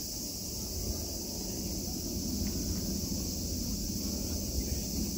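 Steady high-pitched insect chorus over a low, uneven rumble.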